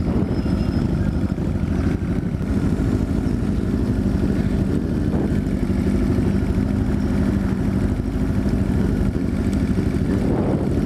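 Freshly restored Yamaha XT250's single-cylinder four-stroke engine idling steadily.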